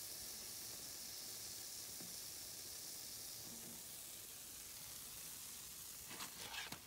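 Hot frying grease sizzling steadily and faintly in a pan, with a few light clicks near the end.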